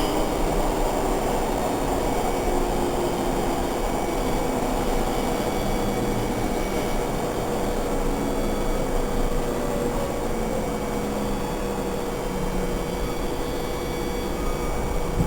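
Budd-built subway car running along the track, heard from inside the car: a steady rumble of wheels on rail with a steady hum, easing slightly in loudness toward the end.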